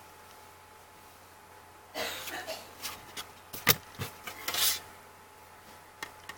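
Handling of a tempered glass screen protector and its cardboard box: about two seconds in, a burst of rustling and scraping with several sharp clicks, lasting about three seconds, then one small tick near the end.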